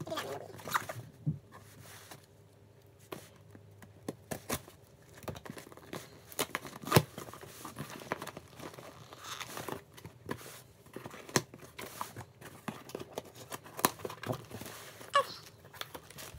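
Packing tape being peeled and torn off a cardboard box, then the cardboard flaps pulled open: irregular tearing, scraping and crinkling with scattered sharp clicks, the sharpest about seven seconds in.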